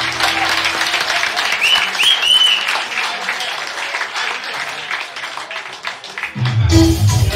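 Audience applauding and cheering, with a few whistles, as the last held chord of a tune fades in the first second. About six seconds in, the band starts again with electric guitar and bass.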